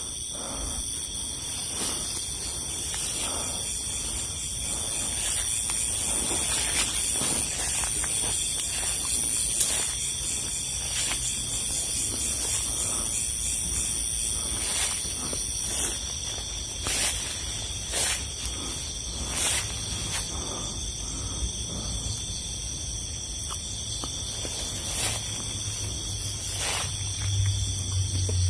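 Insects chirring steadily in a high-pitched chorus of several overlapping tones, with scattered short clicks and rustles.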